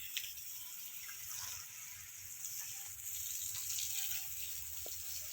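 Faint steady high-pitched hiss, with a few faint short chirps and ticks.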